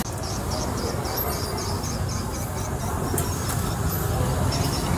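Street ambience: a steady low rumble of passing traffic, with a faint high chirping repeating about four times a second.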